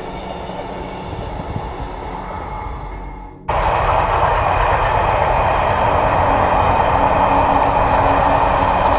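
A passenger train running steadily. About three and a half seconds in the sound cuts to a louder, steady whirring with a high whine: a small quadcopter drone's propellers.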